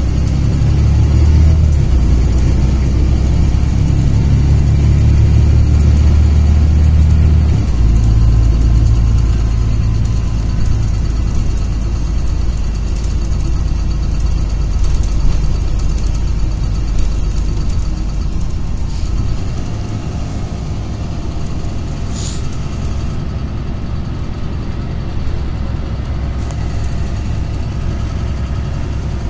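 Cabin noise of a LiAZ-5292.22 city bus under way: the engine drone and road rumble, loud for the first two-thirds with a shift in the low rumble about eight seconds in, then easing to a quieter run in the last third. A brief sharp click sounds a little after two-thirds of the way in.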